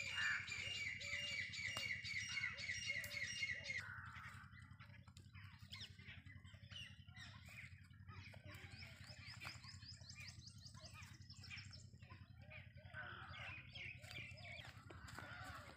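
Wild birds calling: a fast string of repeated high notes for the first four seconds, then scattered chirps with shorter rapid runs around the middle and near the end.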